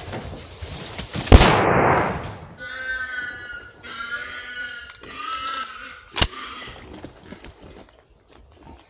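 A gunshot with a long echoing tail, followed by three squeals in a row from a wild boar, then a second, sharper shot.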